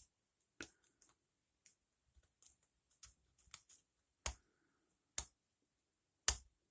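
Hook pick working the pin tumblers inside an ASSA Ruko padlock during single-pin picking: scattered small metallic clicks and ticks as the pins are lifted and set, with three sharper clicks in the second half.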